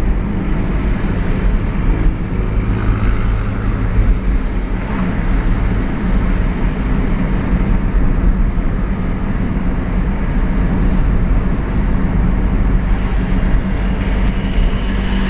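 Steady engine hum and road rumble of a moving car, heard from inside the cabin while driving.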